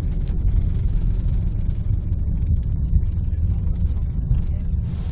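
Cabin noise of an Embraer ERJ-145 airliner on its landing roll: a loud, steady low rumble of the engines and the wheels on the runway. A brighter hiss comes in right at the end.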